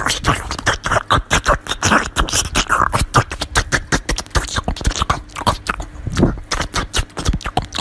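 A small dog chewing and crunching bites of watermelon, a rapid run of wet crunching clicks, several a second.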